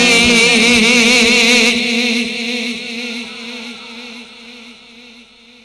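A male naat reciter's voice, amplified through a PA system, holds a long note with a wavering vibrato. The note stops about two seconds in, and its echo dies away slowly.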